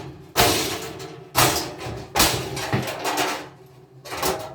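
A series of four heavy bangs about a second apart, each ringing and fading out over roughly a second.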